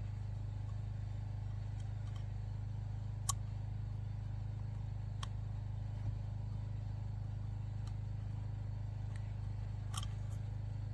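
A steady low hum, with a few faint light clicks of hands working the old rubber O-ring off a Prius's oil filter cartridge housing cap.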